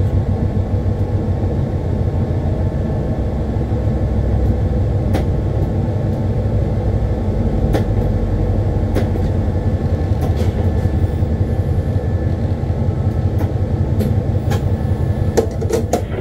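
Diesel-electric locomotive heard from inside its cab, its engine running with a steady low rumble as it moves slowly through depot track and points. Occasional sharp clicks and knocks sound over it, mostly in the second half.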